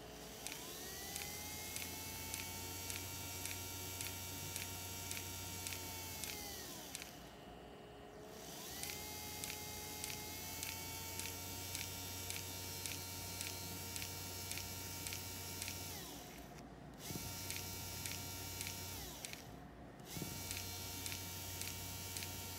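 IG-32RGM planetary geared DC motor running under a speed controller, with a rising whine as it speeds up, a steady whine and light regular ticking at speed, and a falling whine as it slows. It winds down and stops about seven seconds in, then starts again, and near the end is stopped and restarted twice in quick succession.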